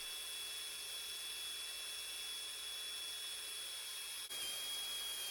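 Drill with a 1/4 inch diamond hole saw spinning at high speed on a wet stone floor, giving a steady high-pitched whine that dips slightly in pitch about four seconds in.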